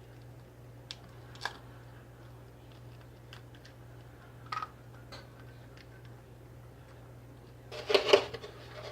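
Eggs being cracked and handled over a bowl: a few faint clicks, then a louder cluster of knocks and clatter near the end, over a steady low hum.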